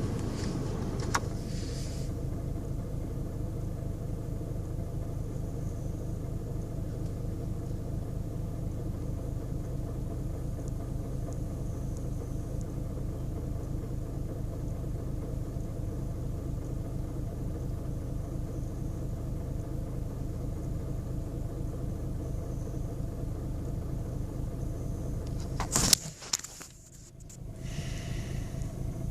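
2010 Volkswagen Golf BlueMotion's 1.6 TDI four-cylinder diesel idling with a steady, pulsing clatter: the rough idle its owner reports after starting. Near the end comes a sharp knock, and the sound drops away for a moment before returning.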